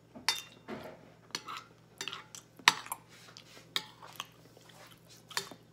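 A metal spoon clinking and scraping on a ceramic plate as food is scooped up: several sharp clinks about a second apart, the loudest near the middle.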